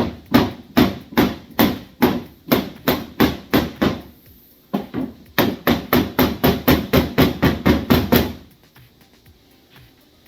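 Hammer striking an IKEA Billy bookshelf over and over, knocking at its small nails to loosen them. Two quick runs of blows, about three a second, with a short pause a little before halfway; the blows stop a couple of seconds before the end.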